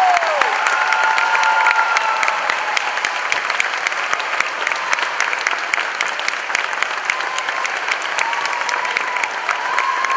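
Audience applauding: many hands clapping steadily, with a few voices calling out in the first couple of seconds.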